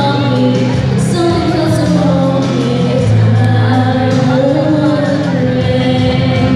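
Two girls singing a duet into microphones over an instrumental backing track, amplified through a PA system, with steady bass notes under the melody.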